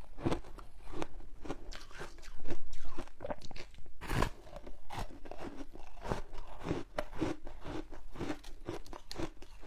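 Close-miked crunching as frozen passion-fruit ice foam is bitten and chewed: a dense run of crisp, crackling crunches, loudest a little after two seconds in.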